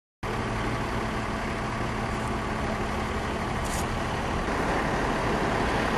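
Steady motor vehicle noise: an engine running with a constant low hum under an even rush, which cuts in abruptly at the start. A brief high hiss comes about three and a half seconds in.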